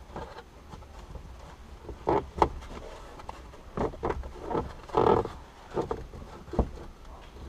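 Plastic car interior trim being pulled and knocked loose by hand: a run of irregular knocks and clicks, the sharpest about two and a half seconds in and again near the end.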